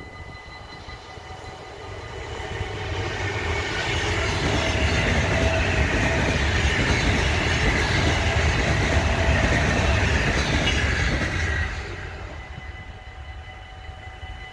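Two coupled NMBS "Varkensneus" electric multiple units passing, a rush of wheels on rails. It builds from about two seconds in, stays loud through the middle and fades away after about twelve seconds.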